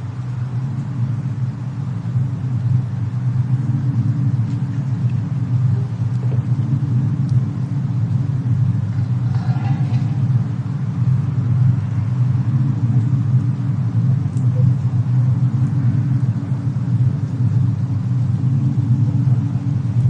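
Steady low rumble of a fireplace-and-snowstorm ambience track, with a few faint crackles and a brief whistling tone about halfway through.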